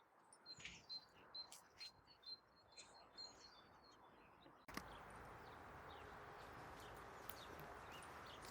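Faint bird chirping: a small bird repeats a short high note a few times a second, mixed with a few light clicks. About two-thirds of the way in, this cuts off suddenly into a steady outdoor hiss.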